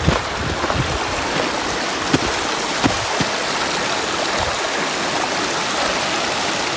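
Small woodland creek running over rocks, a steady rushing of water, with a couple of faint ticks about two and three seconds in.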